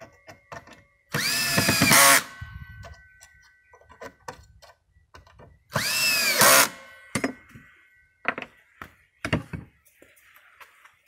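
Cordless drill-driver run twice in short bursts of about a second each, driving the screws that fix the height of the grinder's pendulum arm; each time the motor pitch rises and then sags under load. A few knocks and clicks of handling follow.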